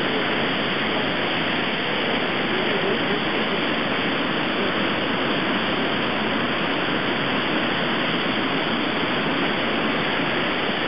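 Floodwater pouring over a concrete weir and churning in the turbulent pool below: a steady rush of water, a river in spate.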